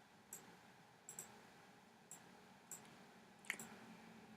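Faint computer mouse clicks, about six spread irregularly over a few seconds, against near-silent room tone.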